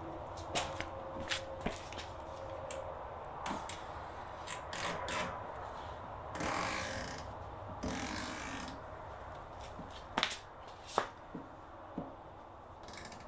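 Scattered sharp plastic clicks and knocks with two short scrapes around the middle: a plastic rear diffuser being handled and pressed onto a car's rear bumper.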